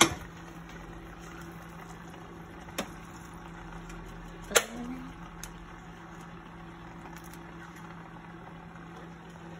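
A steady low hum in the kitchen, broken by a few sharp clinks of utensils against stainless steel pots, the loudest about four and a half seconds in.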